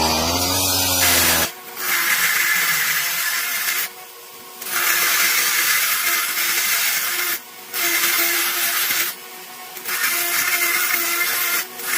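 A power tool's motor changes pitch for a moment. Then the tool works wood in a series of abrasive, hissing passes, each lasting a couple of seconds with short breaks between them.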